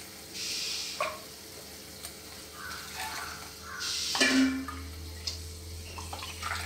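Water poured from a plastic cup into a steel pan of sautéed drumstick leaves, splashing in twice, the second pour about four seconds in and the louder, with a knock against the pan. A few light clicks of the cup and wooden spatula.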